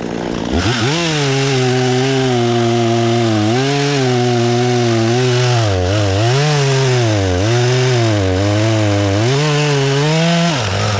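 Husqvarna 120 Mark III two-stroke chainsaw revving up about half a second in and cutting through a tree trunk. Its engine pitch dips and recovers again and again as the chain loads up in the wood, then falls off just before the end.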